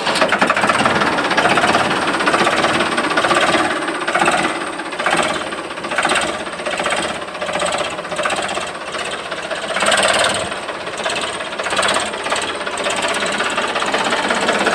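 Ford 3600 tractor's diesel engine running loud through its upright exhaust stack, with a fast hammering chatter. Its sound swells and eases several times as it is driven under throttle.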